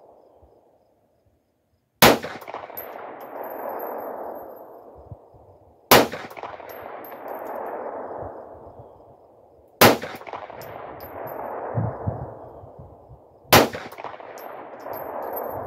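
Four 9mm shots from a Glock 43-pattern pistol, fired slowly about four seconds apart, each followed by a long echo that fades over two or three seconds.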